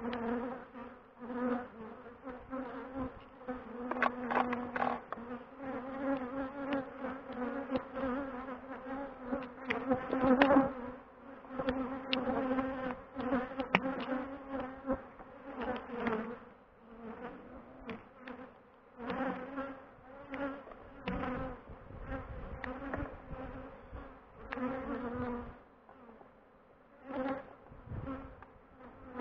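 Honeybees buzzing in numbers around an opened hive, disturbed while it is worked for the honey harvest. Their buzz swells and fades as bees fly past close by, with a few sharp knocks in between.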